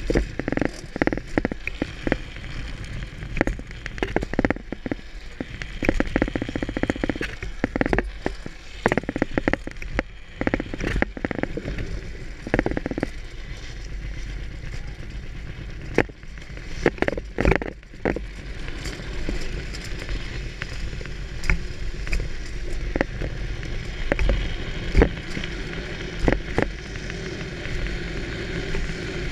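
Wheels rolling and sliding over a road surface on a drift run: a steady low rumble with many sharp crackles and clacks scattered through it.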